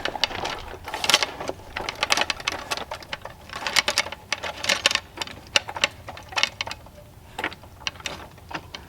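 Rapid, irregular metallic clicking and clattering from hand tools and a jack being worked on a car's wheel, with clusters of sharp clicks about a second apart.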